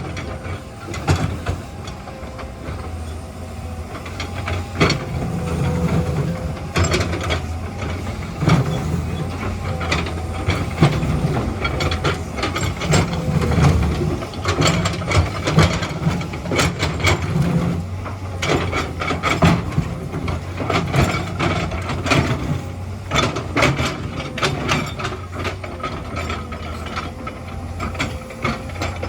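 Excavator at work: its diesel engine running under load with a steady low drone that grows louder through the middle, over frequent sharp knocks and clanks of rock and the steel bucket, and a faint steady whine.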